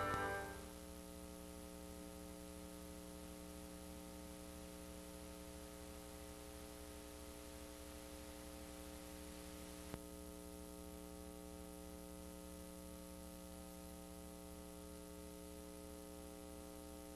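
The last of the closing music fades out within the first second, leaving a faint, steady electrical mains hum with a stack of overtones. There is one small click about ten seconds in.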